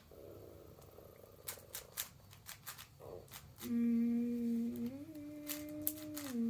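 Plastic clicks of a 5x5 puzzle cube's layers being turned. A bit over halfway in, a person hums a held note that steps up in pitch and drops back near the end, louder than the clicking.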